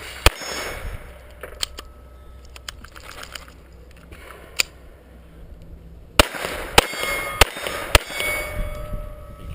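Rimfire pistol shots at steel targets, with the struck plates ringing: one sharp shot right at the start, a few fainter pops over the next seconds, then four shots about 0.6 s apart near the end.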